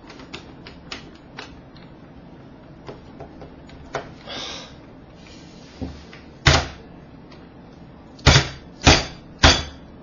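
A stiff white plastic Rubik's cube being forced by hand on a wooden tabletop: small plastic clicks as the layers are worked, then four loud knocks in the last few seconds, two of them close together. The cube is so stiff it barely turns and cannot cut corners.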